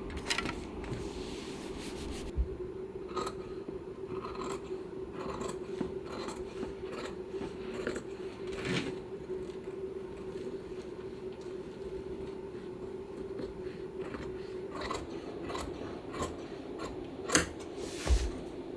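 Hand upholstery work on a dining chair: scattered small clicks, scrapes and rubbing, as of fabric and padding being cut and handled, over a steady low hum. A sharp click comes near the end, then a dull knock.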